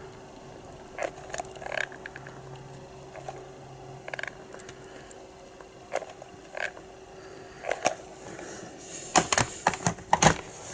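Small plastic clicks, taps and knocks from a homemade REM pod device and its wires being handled, with a cluster of louder knocks near the end and a faint steady hum underneath.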